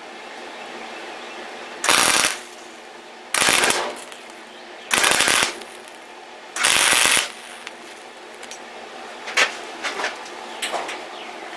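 Welder tack-welding steel: four short crackling bursts of about half a second each, a second or so apart, followed by a few light clicks and taps near the end.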